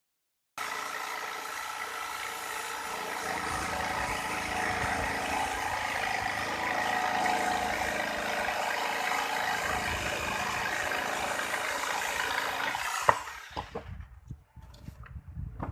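Electric power tool motor running steadily with a high whine while working. It is switched off about thirteen seconds in and the whine slides down as it spins down, followed by a few knocks and clicks.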